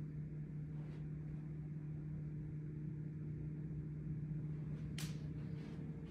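A steady low hum with a faint low rumble beneath it, and a single sharp click about five seconds in.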